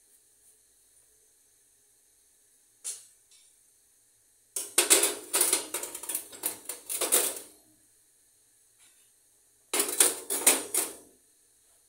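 Metal wire pan grates of a gas stove being set down and shifted into place on the enamelled cooktop, clanking and scraping in two bursts: a long one of about three seconds and a shorter one near the end, after a single click.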